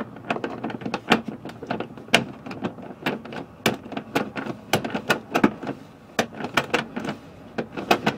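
Half-inch spanner working a nut down on an RV toilet's floor-mounting bolt: a run of sharp, irregular clicks, two or three a second.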